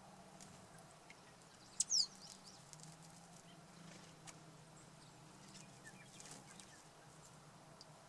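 Small bubbling garden fountain with a steady low pump hum and faint water splashes and drips. About two seconds in, one short, high, falling chirp from a bird stands out as the loudest sound.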